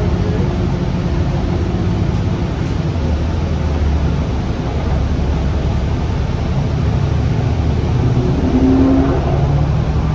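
Engine and road noise heard inside the cabin of a moving Gillig Low Floor transit bus: a steady low rumble whose pitch shifts a little as the bus drives on, with a brief higher note about eight and a half seconds in.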